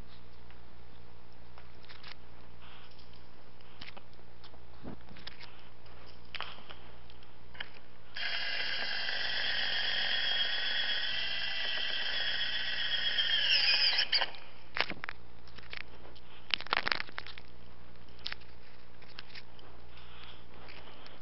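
A power tool whines steadily for about six seconds, starting about eight seconds in and cutting off with a falling pitch. Scattered clicks and knocks come before and after it, with a few louder clicks just after the whine stops.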